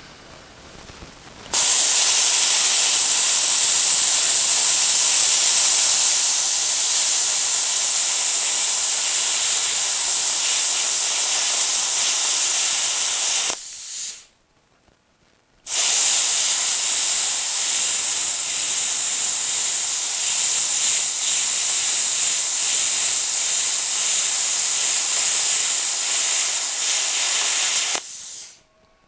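Plasma cutter hissing as it cuts through quarter-inch steel plate, in two long steady cuts of about twelve seconds each with a short stop of about two seconds between them.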